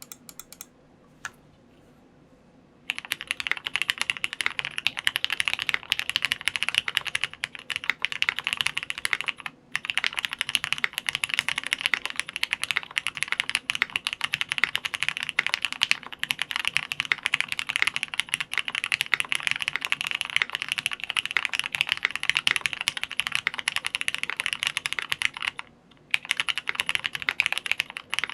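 ABKO AR87 mechanical keyboard with lubed Cherry MX Black linear switches, plate and bottom foam and Domikey keycaps, being typed on fast and continuously. A few lone keystrokes come first, then dense typing starts about three seconds in, with brief pauses near ten seconds and a couple of seconds before the end.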